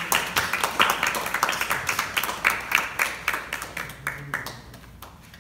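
A small group applauding with scattered hand claps, thinning out and fading away over about four seconds.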